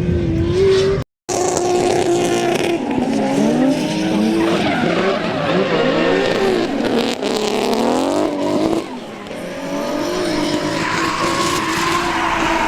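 Drift car on track: the engine revs up and down repeatedly with tyre squeal as the car slides. The sound cuts out briefly about a second in.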